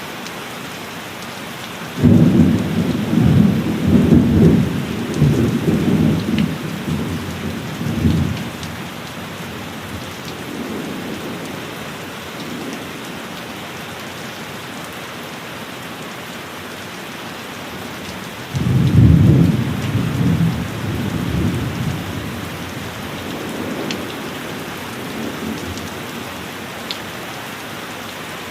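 Steady heavy rain with thunder: two loud rolls of thunder, one starting about two seconds in and rumbling for around six seconds, the other starting past the middle and dying away over several seconds.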